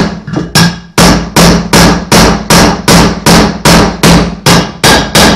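Steady hammer blows, about two and a half a second, on a steel drift, driving a new ball bearing into a Zündapp engine case half.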